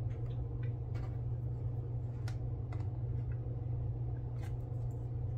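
Light, scattered clicks and taps as fingers handle and press on a plastic scale-model car chassis, over a steady low hum.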